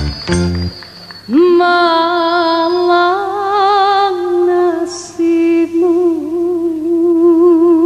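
A woman singing a long, wordless melismatic line. She slides up into a held note, then sustains notes with a wavering vibrato, with a quick breath about five seconds in. Rhythmic plucked-string band music stops just under a second in, before the voice enters.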